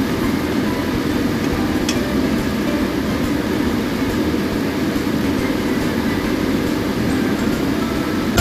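Steady rumbling hiss from a pan of scrambled egg and vegetables being stir-fried on an electric hob, with one small click about two seconds in.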